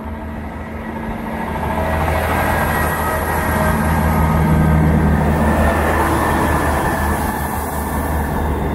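A Great Western Railway Class 158 diesel multiple unit passing close by, its underfloor diesel engines running and its wheels rolling on the rails. The sound builds over the first two seconds and then stays loud and steady.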